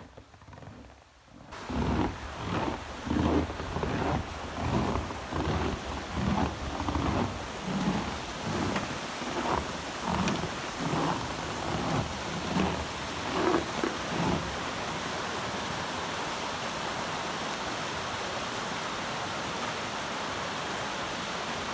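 Footsteps in snow, about one step every 0.7 s, over the steady rush of a waterfall. The steps stop about two-thirds of the way through, leaving only the rushing water.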